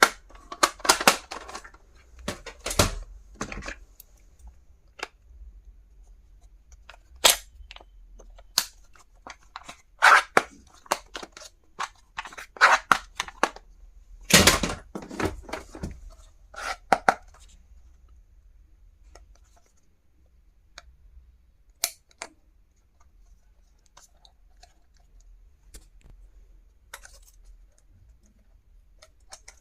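Stationery packaging being handled and torn open by hand: irregular crinkling rustles and sharp clicks. They come thickly for the first half and only now and then after that.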